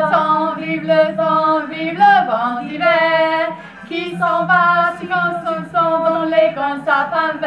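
Female voices singing a melody in a string of held notes over a steady low note.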